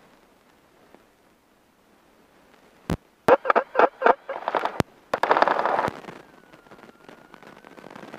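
Light aircraft's piston engine being started: a sharp click about three seconds in, the starter cranking it over in about four quick chugs, then the engine catches and runs loudly for a couple of seconds before settling to a quieter, steady idle.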